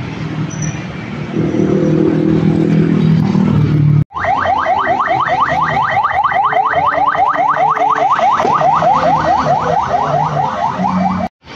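Ambulance siren on a fast yelp: quick rising wails repeating about five or six times a second, loud and steady. Before it, street traffic with a low drone, and the change between them is an abrupt cut about four seconds in.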